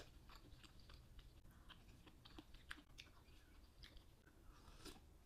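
Faint chewing of a spoonful of doenjang jjigae, with small mouth clicks scattered throughout.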